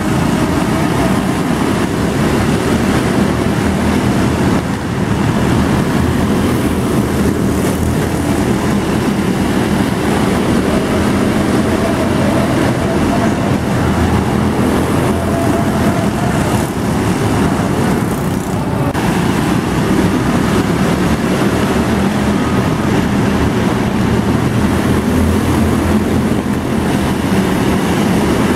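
Engines of a pack of small arena stock cars running together on an indoor track, a loud, steady, mixed drone.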